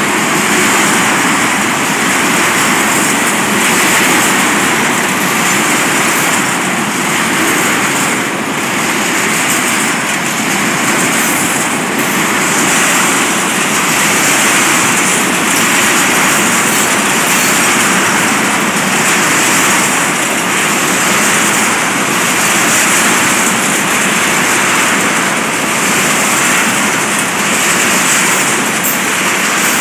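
Freight train of tank cars rolling past close by, very fast and loud: a steady noise of steel wheels on the rails and rushing air.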